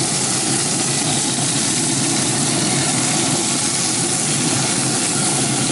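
Traeger pellet grill running, a steady whirring hum with hiss from its fan.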